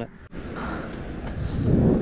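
Wind rushing over the microphone of a moving bicycle, a low rumbling rush that swells near the end.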